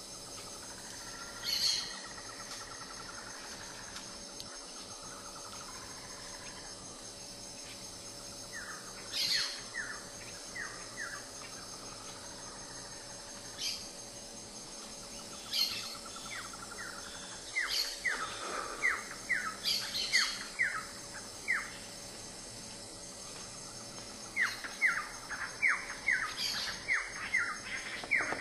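Steady high-pitched insect drone, with a bird calling in three runs of quick, short notes that sweep downward. A few sharp, higher chirps come now and then.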